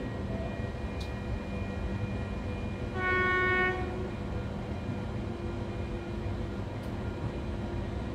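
NSW TrainLink Oscar H-set electric train sounding one short horn blast, under a second long, about three seconds in. It sits over the steady hum of a train standing at the platform.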